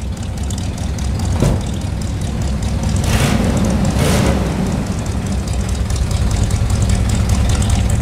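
Chevrolet El Camino's engine idling with a steady, pulsing low exhaust rumble that grows a little louder, with two brief rushing sounds about three and four seconds in.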